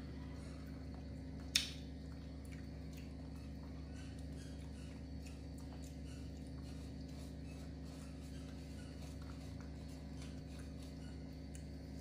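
Faint, quiet sounds of a young macaque chewing pieces of fruit over a steady low hum, with one sharp click about a second and a half in.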